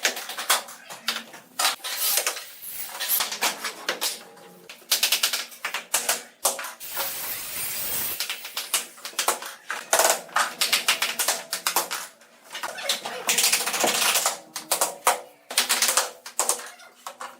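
A rapid, irregular run of sharp clicks and taps, with short pauses now and then.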